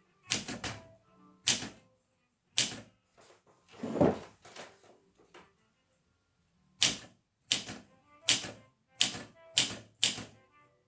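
Olympia SM2 manual portable typewriter being typed on: separate, unhurried key strikes with pauses between them, coming a little faster near the end. About four seconds in there is one heavier, longer clunk.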